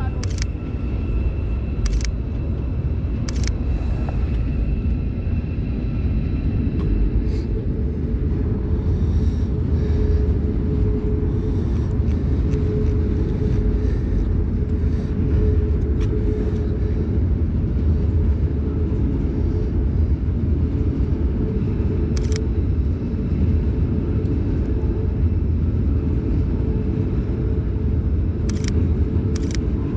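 A steady low rumble runs throughout, with several sharp clicks from the shutter of a Sony Alpha 7 II mirrorless camera as photos are taken, a few in the first seconds and a quick pair near the end.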